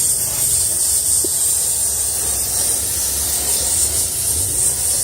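Can of compressed-air duster held upside down, spraying a continuous steady hiss of liquid propellant into a bike U-lock to freeze it.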